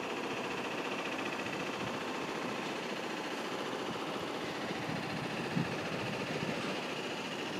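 Steady background hiss with the faint, distant sound of a 205 series electric commuter train approaching, not yet close enough to stand out.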